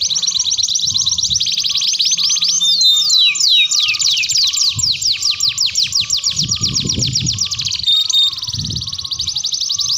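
Domestic canary song: long, continuous rapid trills, with a run of quick falling whistled sweeps from about three seconds in, then back to fast trilling.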